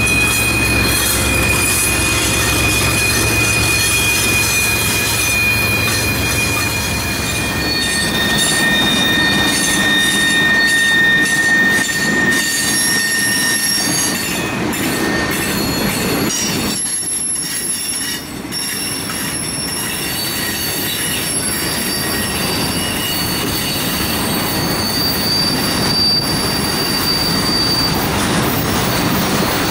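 Freight train passing at close range. The trailing CSX diesel locomotive's engine hum fades in the first several seconds, then hopper cars roll by with steel wheels squealing on the rails in high, steady tones at several pitches, and the wheels click over the rail joints.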